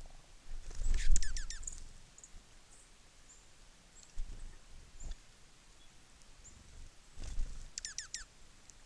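Small songbirds calling: two quick runs of about five sharp chirps, each falling steeply in pitch, about a second in and again near the end. Dull low thumps come in between, the loudest one alongside the first run.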